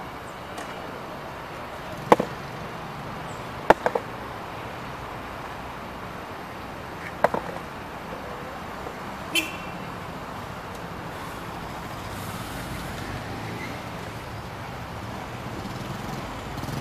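Steady street traffic noise, broken by a few sharp clacks of a skateboard knocking on a stone ledge: one about two seconds in, a quick double clack near four seconds, another after seven seconds, and a lighter, higher click near nine and a half seconds.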